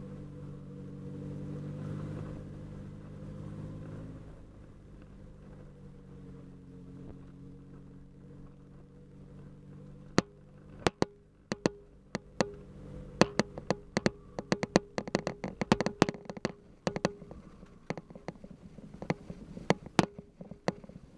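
Vehicle engine running steadily at low speed, a little louder in the first few seconds. From about halfway on, sharp irregular clicks and knocks, at times several a second, as the vehicle rolls over a rough, rocky dirt track.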